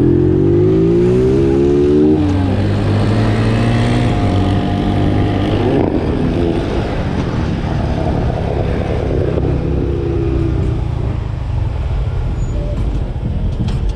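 Vehicle engine accelerating, its pitch rising for about two seconds and then running steadily, with shorter rises about four and ten seconds in, over steady road noise.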